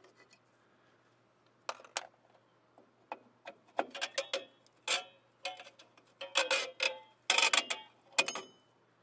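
Metal clicks and clinks of a brake spring tool working the retraction springs off the top anchor pin of a 1998 Ford Ranger's rear drum brake. An irregular run of sharp strikes, some ringing briefly, starts about two seconds in and comes thicker in the second half.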